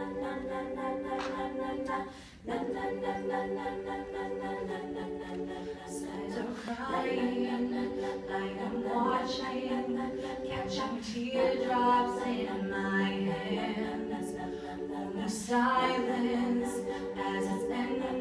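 Women's a cappella group singing sustained backing chords with no instruments, in phrases of about four seconds, each separated by a brief break for breath.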